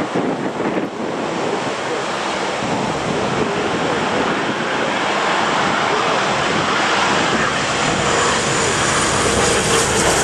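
Embraer ERJ-145 regional jet on short final, the noise of its twin rear-mounted turbofans growing steadily louder as it nears, with a high whine coming in near the end. Gusty wind rumbles on the microphone throughout.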